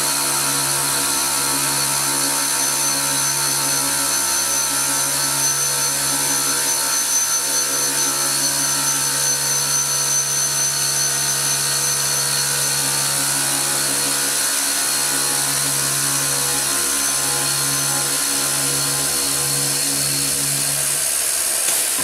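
Industrial circular saw with a Kinkelder blade, a Prosaw Mega CS150S, cutting through a solid stainless steel billet: a loud, steady machine hum and whine with a high hiss, the low hum flickering in the last few seconds.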